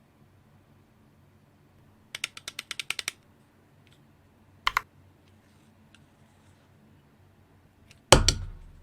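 Small hard plastic parts clicking: a quick run of about ten clicks, a double click a couple of seconds later, then one louder knock near the end. These are Cherry keyboard stabilizer parts being handled and pressed during lubing.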